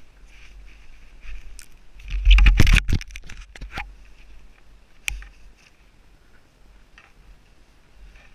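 Footsteps crunching and scraping through snow and brush, with a cluster of loud knocks and thuds about two to three seconds in and a single sharp click about five seconds in.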